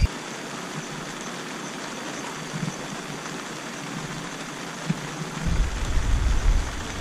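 Steady outdoor hiss of wind over open water, with wind buffeting the microphone as a low rumble from about five and a half seconds in.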